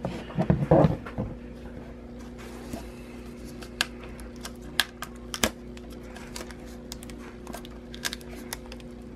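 Fingernails picking at the plastic shrink wrap on a metal Pokémon card tin: scattered sharp clicks and crinkles, a few to several seconds apart, over a faint steady hum.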